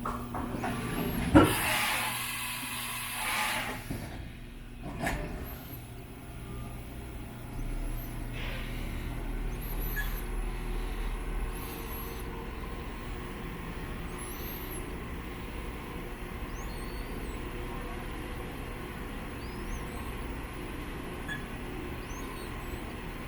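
HAAS VF-3 CNC vertical milling machine running: a sharp click, a hiss of about two seconds, another click a little later, then a steady machine hum.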